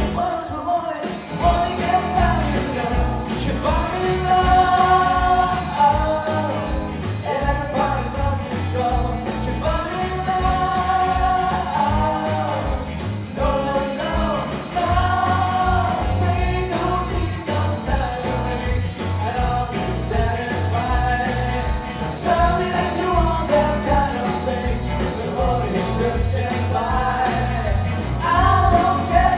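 Live rock band playing a song: a sung vocal line over electric guitars and drums.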